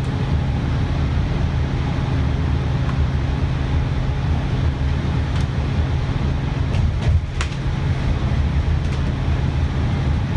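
Steady low drone of a bus's engine and road noise, heard from inside the passenger cabin, with a few short sharp clicks a little past the middle.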